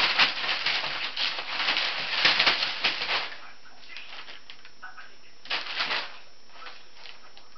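A large sheet of crumpled paper crinkling and rustling under a cat's paws and body as it pounces and scrambles across it. The crackling is loud for about the first three seconds, dies down, then comes again in a short burst about five and a half seconds in.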